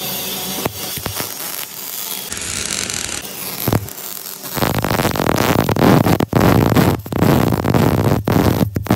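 Arc welding on a vertical steel plate: the arc crackles and sizzles, growing loud about halfway in and cutting out briefly a few times.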